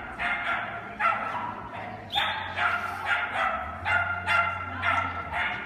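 Dog barking over and over in a quick steady string, about two barks a second.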